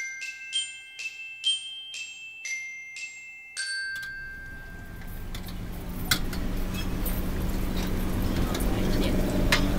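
A bell-like glockenspiel jingle, ringing notes struck about twice a second, ends about four seconds in. It gives way to fritters deep-frying in a large pan of oil: steady sizzling over street noise and a low hum, with two sharp clicks of metal tongs on the pan.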